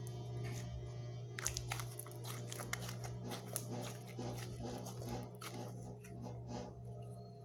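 Background music, with a run of quick sticky clicks and pops starting about a second and a half in and lasting a couple of seconds: homemade slime being squeezed and stretched in the hands.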